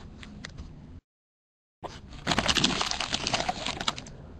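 Foil trading-card pack wrapper crinkling and crackling as it is handled, loudest from about two seconds in, with light clicks of cards before it. The sound drops out completely for a moment about a second in.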